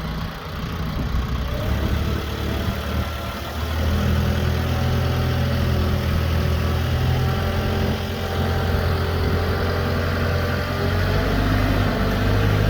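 Branson F50 compact tractor's diesel engine running just after being started, idling and then getting louder about four seconds in.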